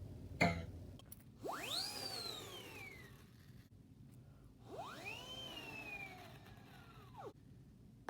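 Comedic sound effects: a brief hit at the start, then two pitched glides, each rising quickly and sinking slowly back down. The second glide ends in a quick downward drop.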